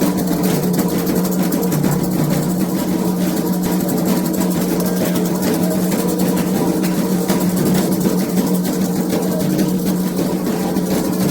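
Candomblé ceremonial drumming: atabaque drums and percussion playing a dense, fast, continuous rhythm over a steady low hum.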